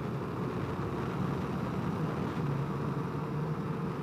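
Honda CRF250L's single-cylinder engine running steadily with a low hum that wavers slightly in pitch.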